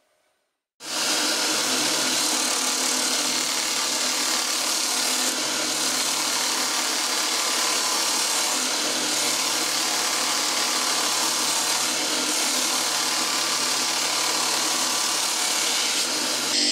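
Belt grinder running with a steel knife blade held against the moving abrasive belt: a steady grinding hiss that starts abruptly about a second in. The blade is Damascus steel forge-welded from a motorcycle chain.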